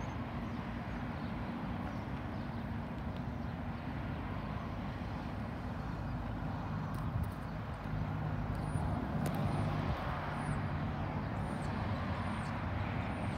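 Distant diesel locomotive engine running with a low, steady drone that gets a little louder about eight seconds in. Faint bird chirps come a few times near the end.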